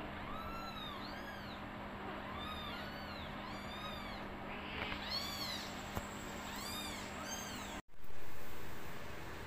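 Young kittens mewing, short high-pitched mews repeating once or twice a second. About eight seconds in, the sound cuts out suddenly and a loud burst of hiss follows, then fades.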